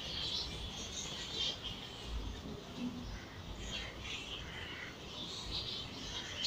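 Birds chirping faintly in scattered short high calls.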